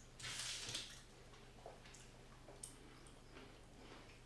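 Faint handling sounds: a short soft rustle about half a second in as a chocolate bar is picked up from a paper-lined tray, then a few faint clicks over a low steady hum.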